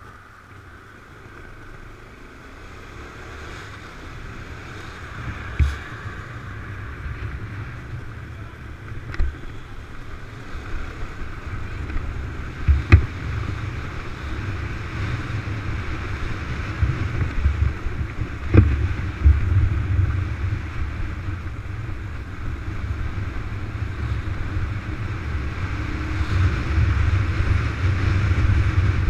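Riding on a motorcycle: a low engine and wind rumble on a helmet-mounted microphone that grows louder as the ride goes on, with a few sharp knocks along the way.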